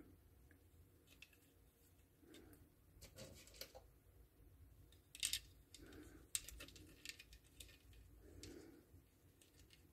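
Faint, scattered clicks and light rattling of small metal pegs and caps being handled and fitted into a hand-held Insta Hang peg-setting tool, with a couple of sharper clicks midway.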